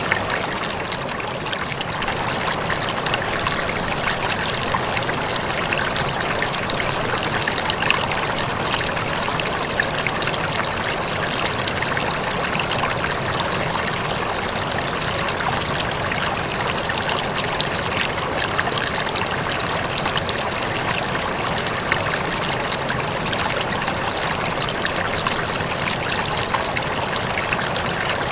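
Water trickling steadily in an aquarium.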